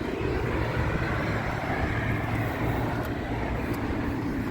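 Road traffic noise: a steady rumble of passing vehicles that swells slightly in the middle.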